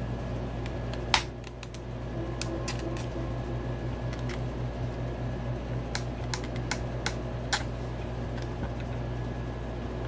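Irregular small plastic clicks and taps as the retaining tabs of a motorcycle fuel pump assembly are worked loose, the sharpest about a second in and a quick run of them later on, over a steady background hum.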